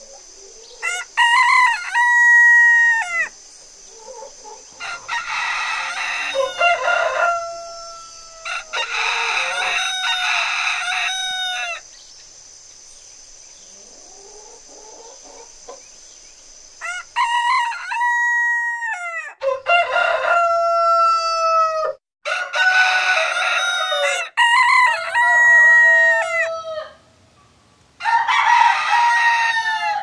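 Rooster crowing over and over, about eight long crows two to three seconds each, with the pitch falling at the end of each; some crows come close together or overlap. A steady high-pitched hiss runs under the first part and stops about two-thirds of the way in.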